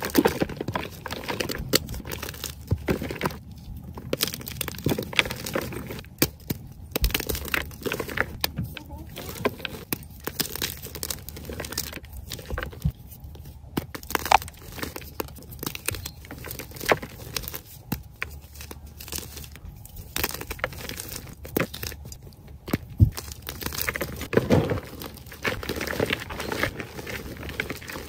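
Soft mint-green and white gym chalk blocks crumbled and crushed by hand, an irregular run of crunches and crackles as the chunks break apart and are squeezed into powder.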